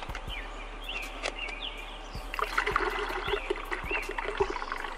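Coolant pouring from a plastic jug into a car's cooling system, gurgling and glugging, and growing louder and busier about two seconds in.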